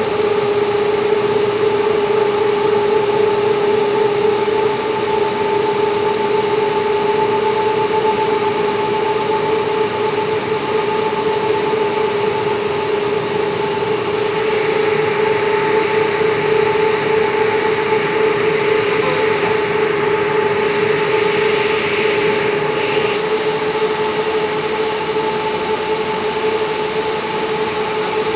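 Electrical switchgear and control-cabinet equipment running with a steady, loud hum and a constant mid-pitched whine, its level unchanging throughout.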